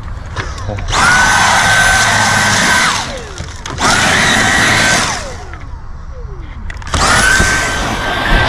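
Hand-held vacuum cleaner switched on and off three times while sucking dog hair out of a car interior, its small motor whining up to speed, running briefly and winding down each time; the third run starts about two thirds of the way in and keeps going.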